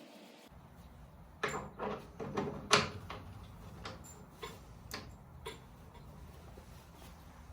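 Irregular clicks and knocks of welder accessories and packaging being handled during unboxing, about a dozen over a few seconds, the loudest about three seconds in. A steady low hum starts half a second in.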